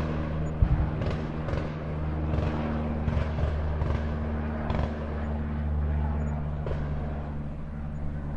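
A steady low mechanical hum, like a running engine, with irregular knocks and clatter over it.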